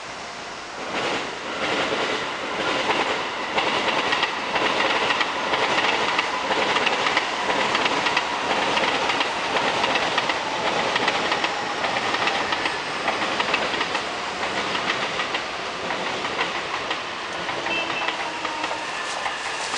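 A train running past on the rails, its wheels clacking steadily over the rail joints. The sound swells about a second in and goes on throughout.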